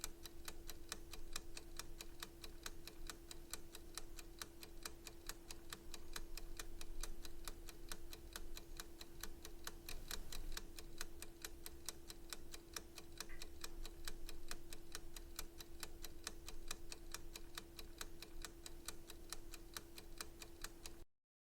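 Clock ticking in a fast, even rhythm over a steady low hum; the sound cuts off abruptly just before the end.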